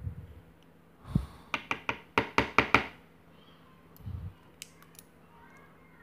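Brass padlock lock cylinder being tapped by hand: a quick run of about nine sharp knocks over a second and a half, starting about a second in. A few light metal clicks follow a couple of seconds later.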